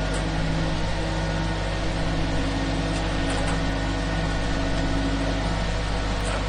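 Concrete mixer running steadily while pouring concrete: a constant engine hum with an even rushing noise over it.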